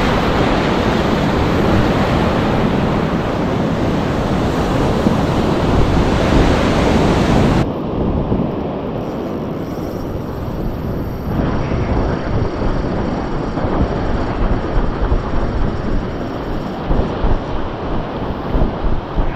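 Surf on the shore and wind buffeting the microphone. About seven and a half seconds in, the hiss of the surf drops away suddenly, leaving an uneven, gusting rumble of wind.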